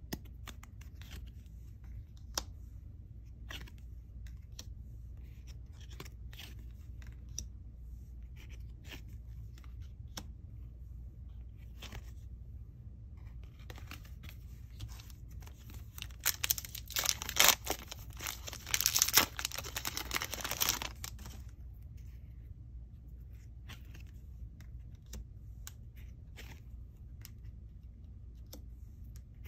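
A trading card booster pack wrapper being torn open: a loud, crinkly ripping for several seconds a little past the middle. Before and after it there are light clicks and rustles of cards being handled and flipped.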